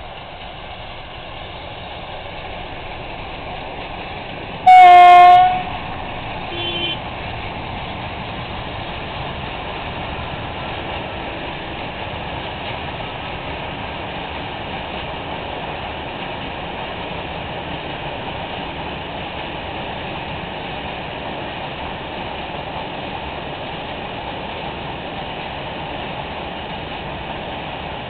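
Two ST43 diesel-electric locomotives pass hauling a long freight train: the engines and rolling wagons build up over the first few seconds and then run on steadily. About five seconds in, a loud horn blast lasts about a second, sounded as the Rp1 warning signal. About two seconds later a short, fainter toot follows.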